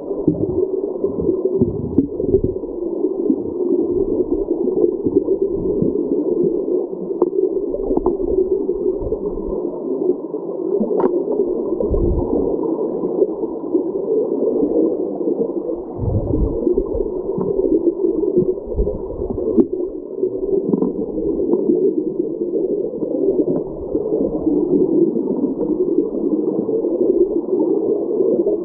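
Creek water flowing over an underwater microphone, a steady muffled rush with no high end, broken by irregular low thumps and a few sharp clicks.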